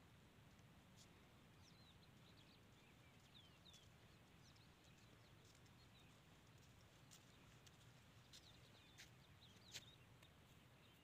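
Faint open-air ambience: scattered short high chirps of small birds over a low steady background hum, with a few faint sharp ticks, the loudest near the end.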